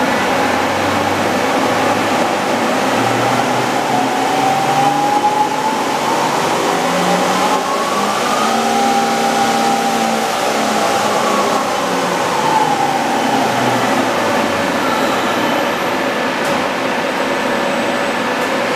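Samsung SL-45MC CNC turning centre's spindle running the empty chuck, its motor whine gliding up and down in pitch several times as the spindle speeds up and slows down, over a steady machine hum.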